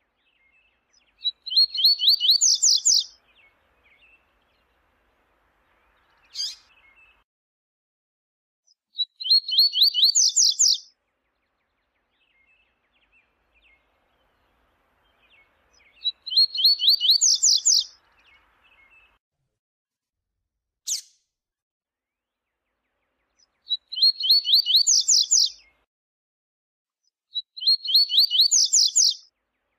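Double-collared seedeater (coleiro) singing: five short songs a few seconds apart, each a rapid run of high notes that climbs in pitch, with two brief sharp sounds in the gaps.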